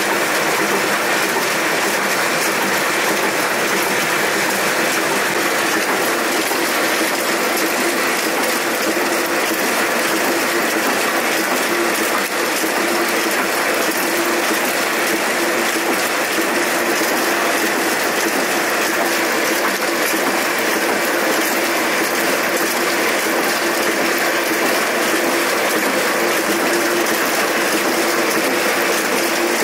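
Old sheet-fed printing press running steadily: a continuous fast mechanical clatter from its chain drive, sprockets and gripper bars, with a faint steady hum underneath.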